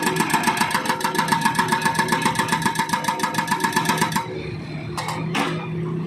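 Hydraulic breaker on a Volvo wheeled excavator hammering asphalt at about ten blows a second. The hammering stops about four seconds in, leaving the excavator's engine running, with a brief clatter shortly after.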